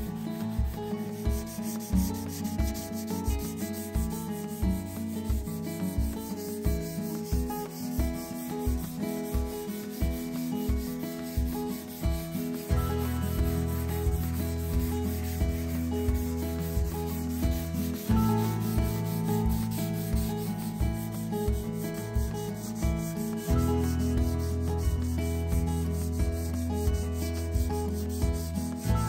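Hand sanding of an ash-veneered tabletop with 120-grit garnet paper on a carpet-faced sanding block, in back-and-forth strokes along the grain at about two strokes a second. Soft background music with slow chord changes plays underneath.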